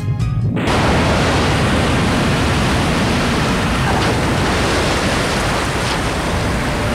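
Heavy rain sound effect: a steady, even rushing hiss that comes in about half a second in, after the music drops out.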